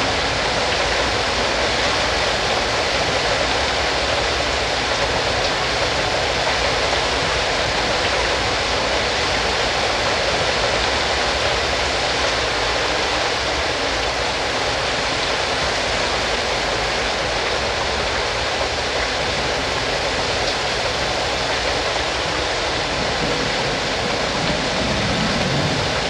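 Steady rushing of water, an even hiss that does not change, with no distinct animal calls standing out.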